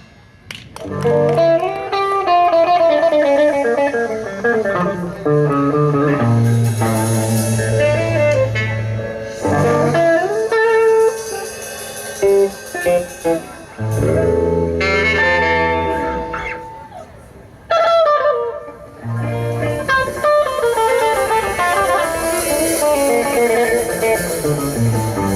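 Instrumental break of a song: a lead melody played over guitar and bass, with no singing.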